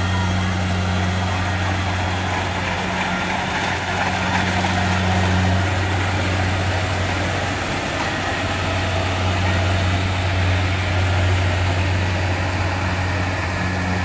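Kubota DC-70G rice combine harvester running steadily with a low engine hum as it cuts and threshes rice.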